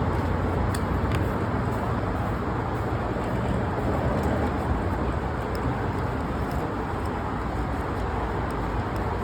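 Steady low rumble of vehicle noise with a few faint light clicks.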